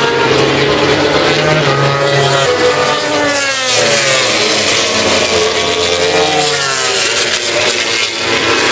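Racing motorcycles passing on the circuit at high revs. The engine pitch climbs as a bike accelerates and then drops as it goes by, about three and a half seconds in, with another bike passing a few seconds later.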